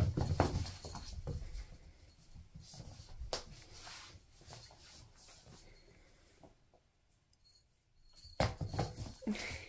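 A cat pouncing and scrambling on a wooden floor, its paws and body thumping and scrabbling in quick knocks. There is a flurry at the start, a few scattered knocks after it, a second of near silence, then another flurry near the end.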